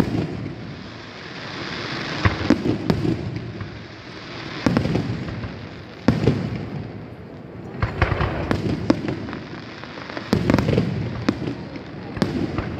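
Aerial firework shells bursting in a display: about a dozen sharp bangs, some in quick pairs or threes, every second or two, with a steady hiss between them.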